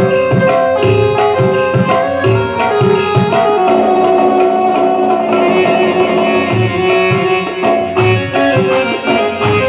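Indian devotional music: tabla keeping a steady rhythm under a pitched melody instrument, with notes held longer through the middle.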